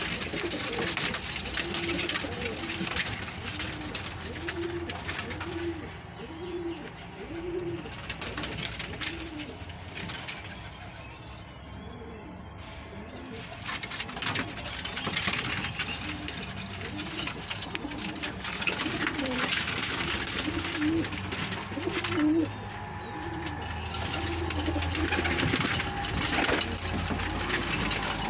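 Domestic pigeons cooing in a loft: a run of low coos, about two a second, that pauses midway and starts again. Wings flap and feathers scuffle as birds shift and take off from the perches.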